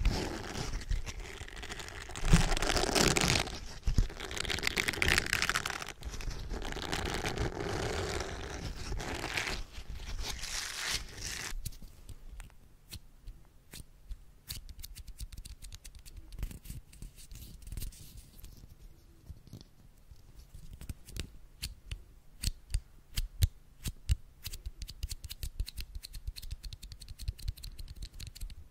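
A spiky silicone pad rubbed and squished against a microphone's metal grille gives a dense, scratchy crackle that stops abruptly about eleven seconds in. After that come faint, rapid clicks and small crackles from fingers plucking in the air close to the microphone, getting louder toward the end.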